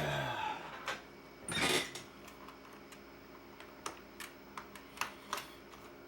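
Scattered light clicks and taps from an IBM Model M keyboard's keys and parts being handled and pressed during a repair, with a short louder rustle about a second and a half in.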